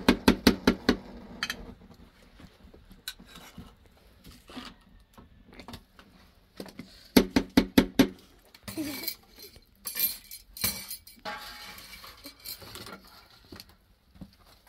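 Metal ladle knocking against a metal pot of cooked rice: two quick runs of about six taps, one at the start and one about seven seconds in, then loose scraping and clinks of the ladle in the pot.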